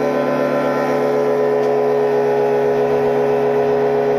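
Sawmill woodworking machine's electric motor running steadily: a constant hum made of several fixed tones, with no change in speed or load.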